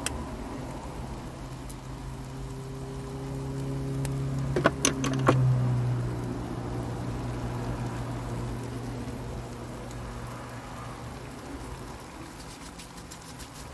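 Curry simmering and sizzling in a frying pan on a portable gas stove, a steady spattering hiss. A low hum swells and fades through the middle, and a few sharp clicks come about five seconds in.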